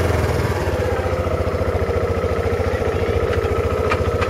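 A small engine running steadily with a fast, even pulse, starting to fade near the end.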